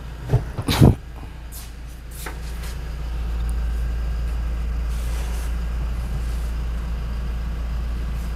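Toyota Fortuner's 2.4-litre four-cylinder turbodiesel idling with a steady low rumble, which grows louder a few seconds in. Two sharp clicks come just under a second in.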